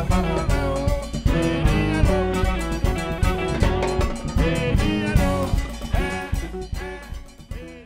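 The ensemble's live stage music, a band with drums and a lead melody line, laid over the end credits and fading out over the last couple of seconds.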